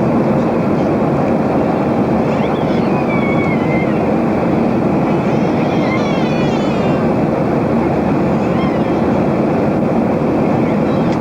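Steady jet airliner cabin noise in flight: the engines and airflow running as an even rush.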